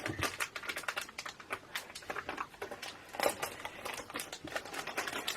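Rapid, irregular clicking and rustling of things being handled in a small room, with a few louder clicks about a second apart near the start and a louder one near the middle.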